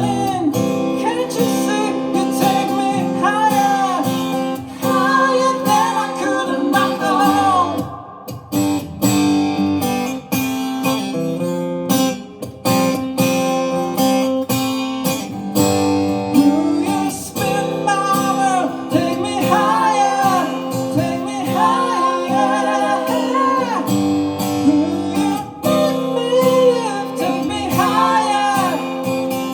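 Live song on acoustic guitar, with a voice singing long, wavering runs that carry no clear words. The music thins out briefly about eight seconds in.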